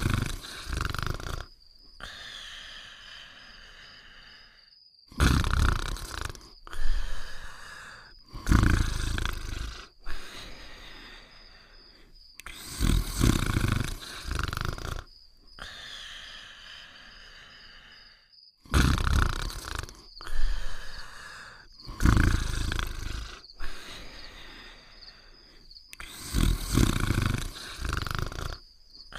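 Cartoon snoring sound effect for a sleeping dog: loud, rough snores in groups every few seconds, with quiet gaps between, over a faint steady high tone.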